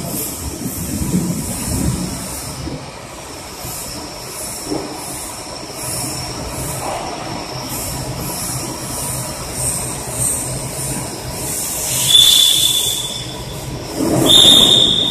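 Automatic potato weighing and bagging line running: a cleated belt conveyor carrying potatoes into the weigher makes a steady mechanical clatter with a faint regular ticking. Near the end come two brief shrill squeals, each with a rush of hiss.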